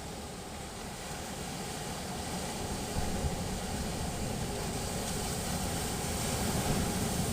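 Sea waves washing ashore: a steady rushing surf that swells louder through the middle and peaks near the end.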